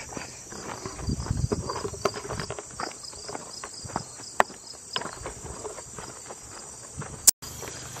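Footsteps and grass rustling as someone walks along a grassy dirt trail, with insects trilling steadily behind them. A sharp click and a moment of dropout near the end.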